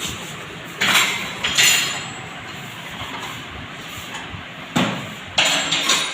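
Metal tools knocking and clanking on a Hero Splendor+ motorcycle as mechanics tighten its loose drive chain. There are four sharp, ringing knocks, two near the start and two near the end, over a steady workshop background.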